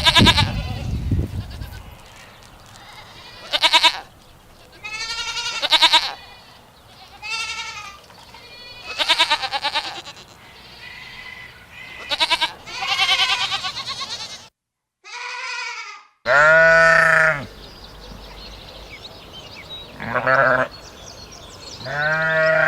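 Goats bleating again and again, each call a wavering bleat of about a second. After a short silent break past the middle, the bleats come lower-pitched.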